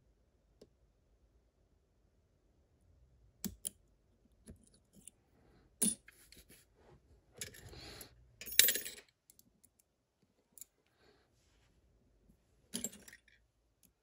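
Small metal lock-picking tools clicking and clinking against a lock cylinder in a vise, as picks are withdrawn and swapped. A short stretch of metal rattling comes about halfway through, with the sharpest, loudest clink just after it.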